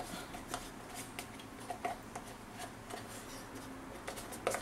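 Light, irregular clicks and taps of a spoon against a carton as thick condensed milk is poured and scraped out into a blender jar, with a cluster of louder clicks near the end.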